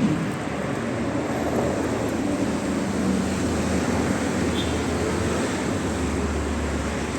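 Steady outdoor traffic noise, a continuous rumble and hiss from a road.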